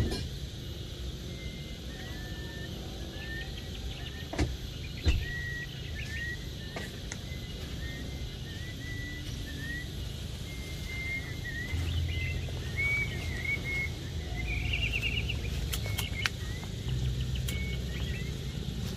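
Small birds chirping again and again over a steady low rumble, with two sharp knocks about four and five seconds in.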